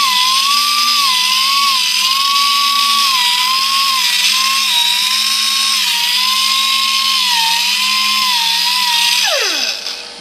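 Air-powered sander running with a high whine and a hiss of air, its pitch wavering slightly as it sands calluses off a foot. It winds down with a falling pitch about nine seconds in.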